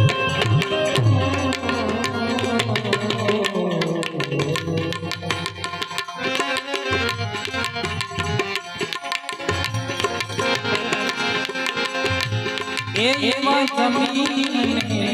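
Instrumental interlude of a Gujarati bhajan: tabla strokes keep a steady rhythm under held harmonium melody notes. A singing voice comes in near the end.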